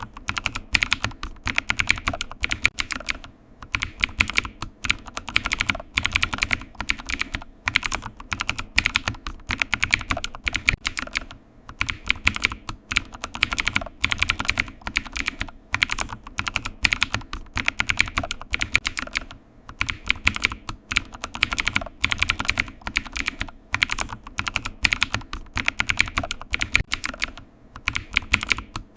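Computer keyboard typing: a fast, continuous run of key clicks with short pauses here and there.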